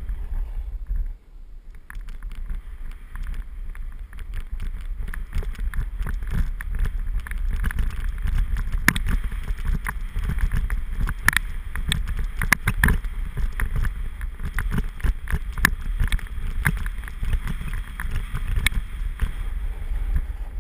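Wind buffeting the microphone as a snowboard scrapes and chatters down a tracked-up groomed slope, with several sharper scrapes of the edge biting into the snow in the second half. It goes briefly quieter about a second in.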